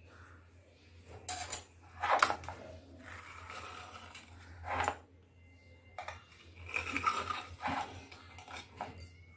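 A steel knife scraping and clinking against a metal idli plate as it is run around the edge of each steamed idli to loosen it from its mould. There are a few separate scrapes, the sharpest about two seconds in and just before five seconds, and a busier run of them near the end.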